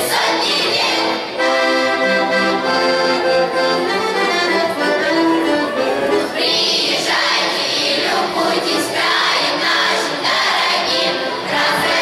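Children's choir singing with instrumental accompaniment. The sung phrase ends about a second in, the accompaniment plays an interlude alone, and the choir comes back in about six seconds in.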